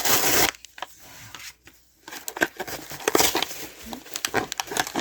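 Packaging of a Pokémon card pack being torn open and crinkled: a loud rustling tear in the first half second, then a run of small crackles and clicks as the wrapper and cards are handled.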